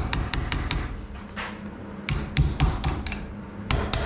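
Sharp taps knocking a scooter handlebar part into place, in three quick groups: a run of taps at the start, another about two seconds in, and a final couple near the end.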